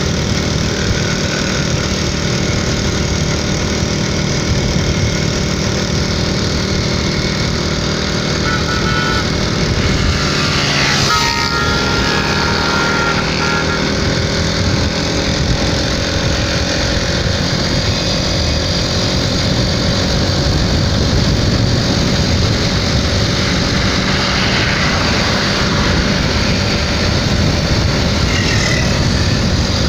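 Motorcycle engine running steadily at cruising speed, heard from the rider's seat, with wind and road rush over it.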